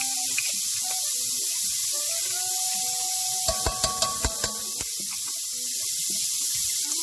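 Onions frying in a hot pan with a steady sizzle, and a run of sharp clicks and knocks about halfway through.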